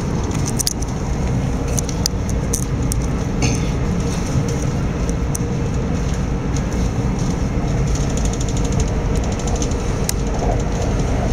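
Electrostar electric train running at speed, heard from inside the carriage: a steady rumble of wheels on the rails with a faint steady hum and scattered small clicks.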